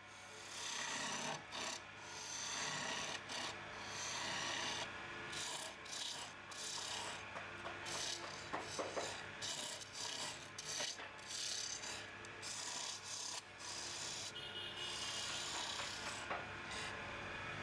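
Hand turning chisel cutting a spinning oak spindle on a lathe: a scraping, shaving noise in repeated passes broken by short pauses, over a steady low hum.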